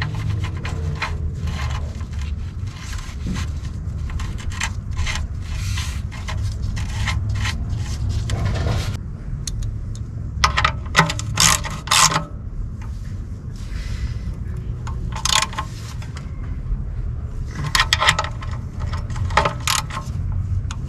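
Scraping, rubbing and clicking of hand tools and parts being worked by hand during an oil change, with a few sharp clicks, over a steady low hum.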